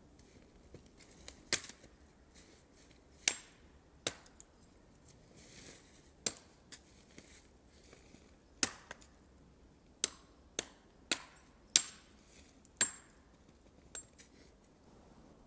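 A blade chopping at a dry sapling pole: about a dozen sharp, irregularly spaced strikes.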